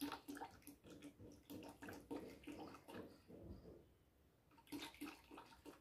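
Used cooking oil glugging faintly as it is poured slowly from a plastic bottle into a bucket of lye solution, in quick even glugs. The glugging dies away a little past the middle and picks up again near the end.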